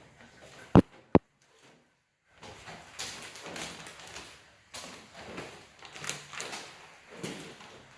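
Two sharp clicks close together about a second in, then a moment of near silence, followed by irregular rustling and uneven knocks like footsteps and handling noise.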